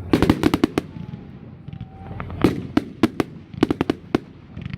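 Fireworks going off: irregular volleys of sharp cracks and bangs, a rapid string of them right at the start and further clusters through the rest.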